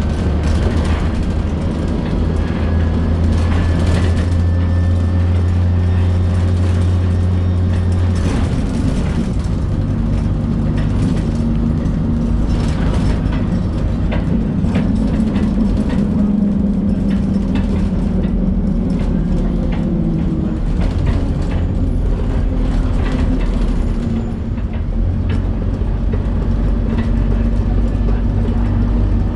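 An Alexander Dennis Plaxton Pointer 2 single-decker bus running under way with a faint turbo whistle over its diesel engine note. The engine note changes about 8 seconds in, and frequent small rattles and knocks run over it.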